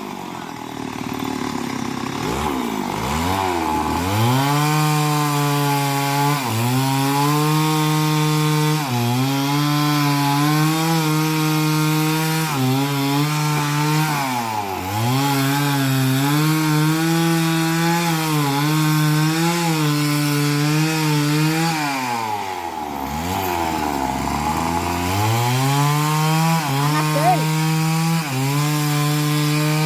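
Two-stroke chainsaw cutting into a young coconut palm trunk. The engine runs at high revs, sagging toward idle and climbing back several times, with the longest drop about two-thirds of the way through.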